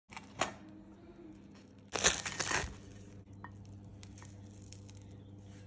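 A single click, then a short loud crunching noise about two seconds in, followed by a few faint clicks, over a low steady hum.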